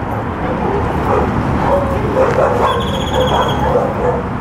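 A dog vocalizing in short, repeated calls, with a high, thin tone held for about a second midway through.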